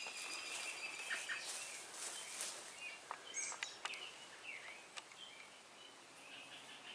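Small birds chirping and calling in short high-pitched phrases, with a few light clicks mixed in.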